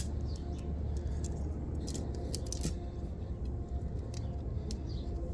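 Tent gear being handled: scattered light clicks and rustles over a steady low rumble.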